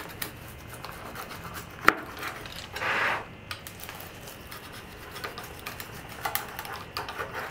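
Pizza-cutter wheel rolling through a baked pizza and scraping on the wooden cutting board beneath, with many small clicks. There is one sharp knock about two seconds in and a louder rasping stretch about three seconds in.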